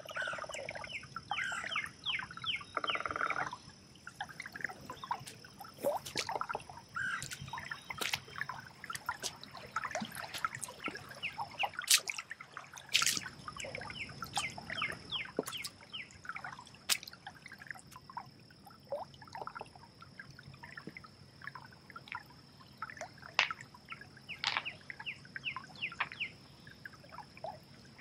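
Woodland birds chirping and singing over a shallow creek's trickling water, with a steady high-pitched drone underneath. A few sharper, louder sounds stand out, including one about 12 seconds in.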